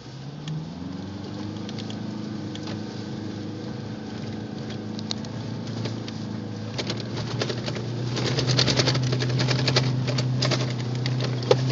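4x4's engine heard from inside the cabin, revving up in the first second and then pulling steadily through soft sand, growing louder. From about seven seconds in, a dense run of sharp clicks and rattles joins it as the vehicle bumps over the rutted dunes.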